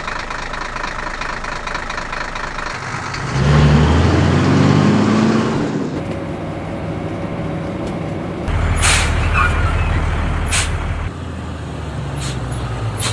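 Truck engine sounds: an engine revs up and runs loudest for a couple of seconds, then settles to a steady low drone. Several short, sharp hisses of truck air brakes come in the second half.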